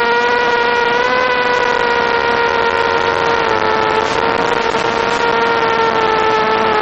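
Mini quadcopter's Suppo brushless motors and propellers whining steadily in flight, the pitch easing slowly downward.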